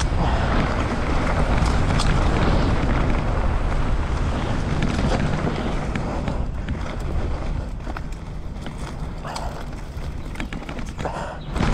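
Wind rushing over the microphone and tyres rolling on a rough dirt trail as an electric mountain bike is ridden, with scattered sharp clicks and knocks from stones and the bike rattling. The rush eases for a few seconds after the middle, then rises again near the end.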